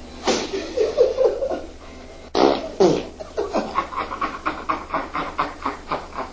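Loud farting sounds: a wobbling, sputtering fart, then a sharp burst a little over two seconds in and another about half a second later, followed by a rapid string of short bursts, about five a second.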